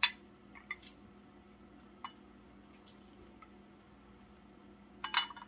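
Glass clinking against glass: green glass tumblers knocking on a glass tray as they are handled and set in place. A sharp clink comes at the start, a couple of lighter taps follow, and a quick double clink comes near the end.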